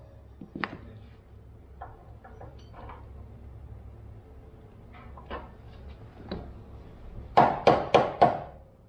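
A hammer driving a bolt into a truck's leaf-spring mounting. There are a few faint metal clicks as the bolt is handled, then four quick hammer blows near the end.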